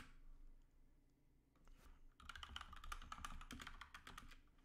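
Faint typing on a computer keyboard: after a near-quiet pause, a quick run of keystrokes starts about halfway through.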